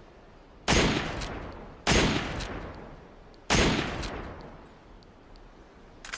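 Three shots from an SVD Dragunov semi-automatic sniper rifle (7.62×54mmR), about a second and a half apart, each with a long echoing decay.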